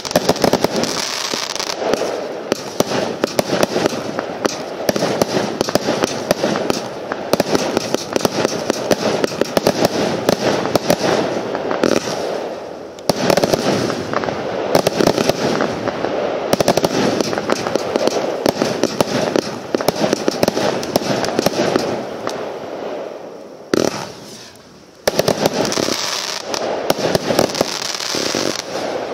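600-shot compound firework cake firing in a dense, rapid stream of shots and bursting stars. The firing eases briefly about halfway through and drops to a short lull near the end before picking up again.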